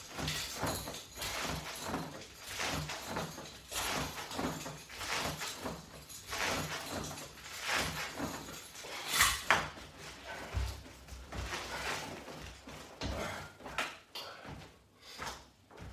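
A person doing sit-ups against resistance straps on the floor: a quick, uneven run of rustling, breathy strokes, with a louder knock about nine seconds in.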